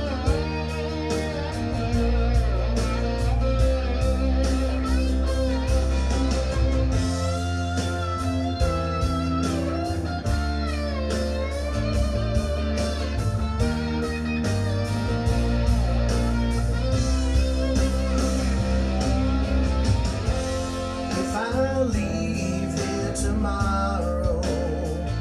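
A full-band country-rock song played back, led by electric guitar with bending notes over bass and drums.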